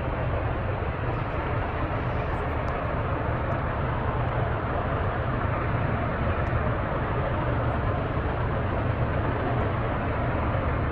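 Power plant running steadily: a constant deep rumble with a hiss above it, unchanging in level.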